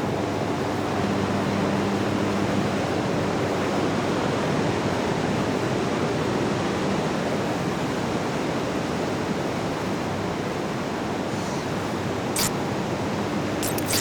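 Steady rush of breaking big-wave surf and whitewater. An engine hums underneath for the first few seconds, and a few sharp clicks come near the end.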